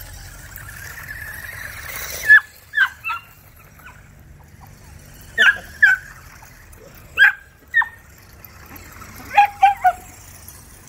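HBX Rampage RC truck's electric motor whining for about two seconds, then cutting off. After that, dachshunds bark in about ten short, sharp yips, three in quick succession near the end.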